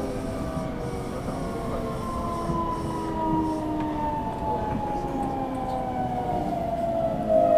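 JR West 225 series electric train running sound as it slows into a station. Its traction motor whine sounds as several tones falling slowly in pitch while the train brakes, over a steady rumble of wheels on rail.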